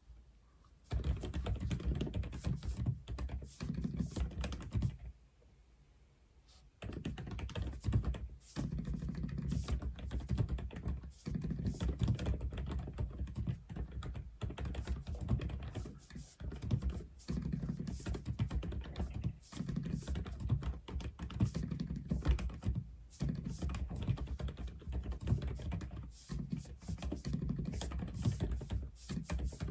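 Continuous typing on an Aula F87 mechanical keyboard, a fast run of keystrokes that stops for about two seconds around five seconds in and then carries on.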